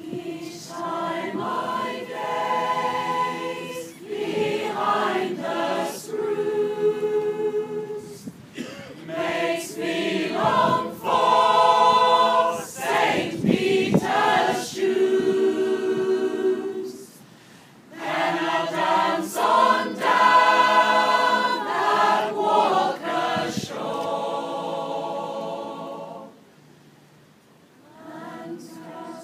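Mixed choir of women's and men's voices singing a sea shanty unaccompanied, in long phrases with brief breaks between them.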